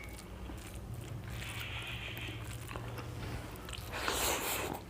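A person eating: chewing and biting through a meal of rice with spinach and its stalks, with scattered small clicks and a louder noise lasting about half a second near the end.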